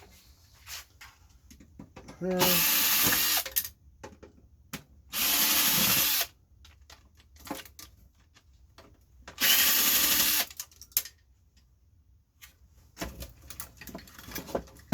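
A small handheld power tool running in three bursts of about a second each, with small clicks and knocks of handling between them.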